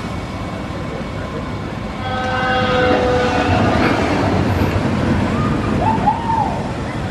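Zamperla motorbike roller coaster train launched and running along its steel track: a steady rumble that swells about two seconds in, with a brief steady whine as it gets under way. A few short rising-and-falling cries come near the end.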